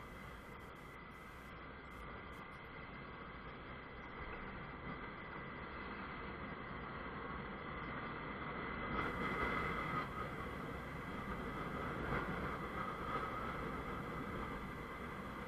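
Honda CBF 125 motorcycle on the move: its single-cylinder engine and rushing wind and road noise. The sound grows louder through the middle, as the bike picks up speed, and stays up near the end.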